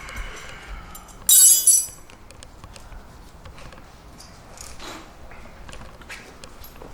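Metal wrenches clanking together with a ringing jangle: two hits close together about a second and a half in. Light scattered clicks and taps of tool work follow.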